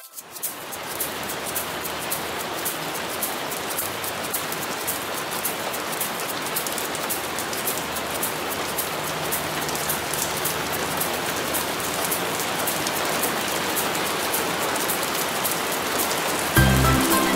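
Steady rain falling, with a fine patter of drops. Near the end, music comes in over it.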